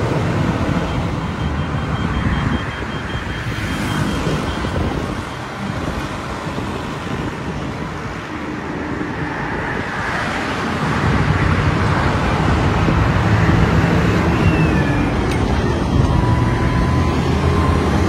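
Diesel engines of heavy construction machinery running, a steady rumble that gets louder about eleven seconds in.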